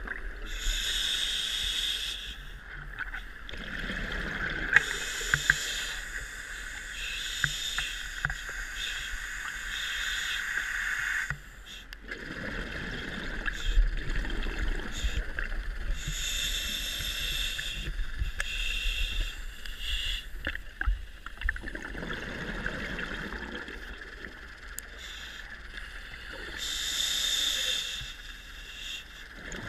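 Scuba diver breathing through a regulator underwater: a hissing inhalation followed by a bubbling, rumbling exhalation, in slow cycles of about three breaths.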